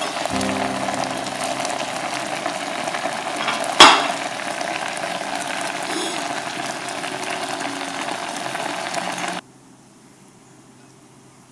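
Kabocha pumpkin pieces bubbling and sizzling in a little liquid in an enamel pot, with one sharp knock against the pot about four seconds in. The sizzling cuts off suddenly near the end, leaving a quiet room.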